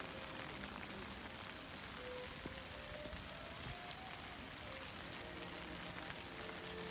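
Steady hiss of light rain with many small drop ticks, under faint background music.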